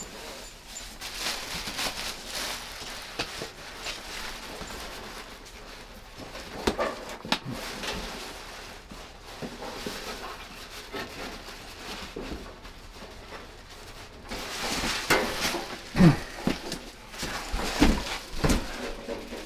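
A cardboard carton and its packing being handled as a gas heater is worked out of the box: rustling and scraping with a few knocks, busier and louder in the last few seconds.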